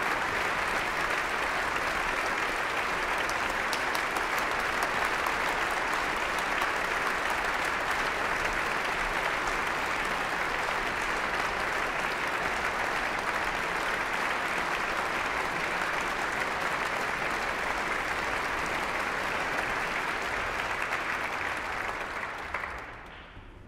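Concert audience applauding steadily in a large hall, a dense even clapping that fades away quickly near the end.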